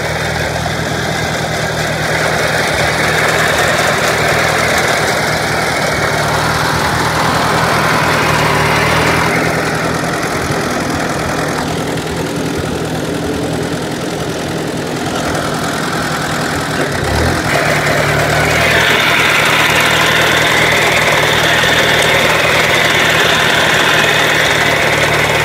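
Ford 860 tractor's four-cylinder engine running steadily under load while it pulls a Massey Ferguson dyna-balance sickle bar mower cutting standing oats.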